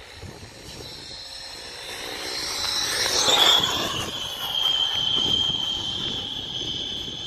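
Radio-controlled F-15 model jet flying low past and landing: a high whine grows louder, drops in pitch as the jet passes about three and a half seconds in, then holds at a steady pitch as the jet rolls along the runway.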